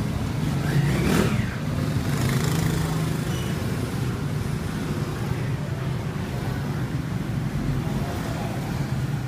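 Steady road traffic and engine noise, swelling as a vehicle passes about a second in.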